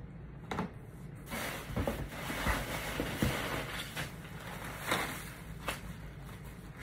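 Unpacking a cardboard shipping carton: shoeboxes being lifted out and stacked, and packing material rustling, with several light knocks of box on box.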